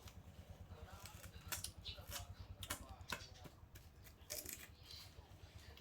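Faint chewing and crunching of food, heard as scattered short clicks and crackles over a low steady hum.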